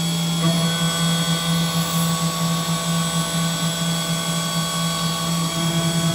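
Syil X7 CNC milling machine cutting aluminium under flood coolant. The spindle and cutter make a steady machining whine over a low hum that pulses as the cutter works through the plate.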